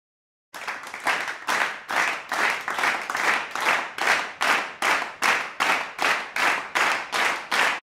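Several people clapping their hands in unison to a steady beat, about two and a half claps a second, starting about half a second in and stopping abruptly near the end.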